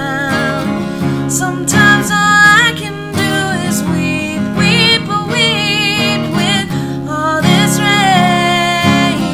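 A song sung with vibrato over strummed acoustic guitar.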